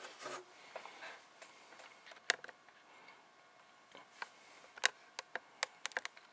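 Scattered sharp plastic clicks and ticks from a SATA cable connector being pulled off the logic-board port and handled inside the computer case. There is a single click about two seconds in, another about four seconds in, and a quicker run of clicks near the end.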